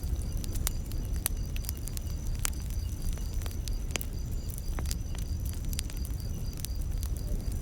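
Wood fire crackling, with frequent irregular sharp pops and snaps over a low, steady rumble of burning. A steady high-pitched insect trill, typical of crickets, runs behind it.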